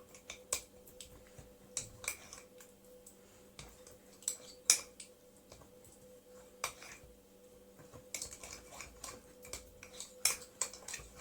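A spoon stirring honey, olive oil and lemon juice together in a dish, knocking against the sides in irregular clicks and clinks.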